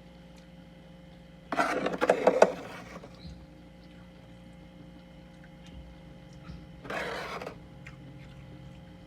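Soft humidifier freezer frost crunching in two bursts: a loud, crackly one about a second and a half in, lasting over a second, and a shorter, quieter one near seven seconds.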